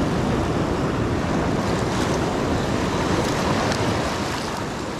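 Sea surf washing and breaking close by, with wind buffeting the microphone; the sound starts to fade near the end.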